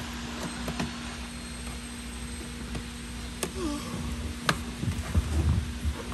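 Hand work on a car's dashboard: two sharp clicks and then a few light knocks and rustles near the end, over a steady low hum.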